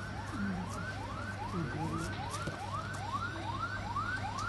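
Emergency-vehicle siren in a fast yelp: a rising sweep repeated about two and a half times a second, steady in level, from the escort of an approaching motorcade.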